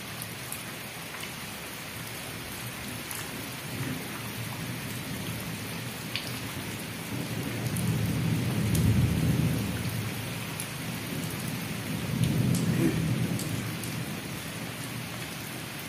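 Heavy rain falling steadily, with a low rumble of thunder swelling about halfway through and again a few seconds later.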